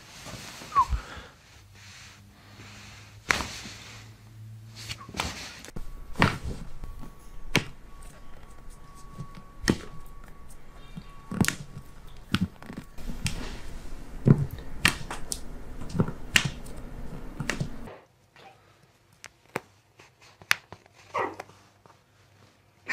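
Sharp, irregular pops and cracks from the joints of the feet and toes as a chiropractor manipulates them, picked up by a microphone held close to the foot. There are a dozen or more single pops, one every second or two, with fewer and quieter ones near the end.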